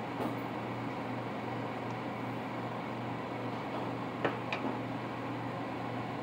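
Steady machine hum and hiss, like a fan running, with two light clicks of a spatula against the pan about four seconds in.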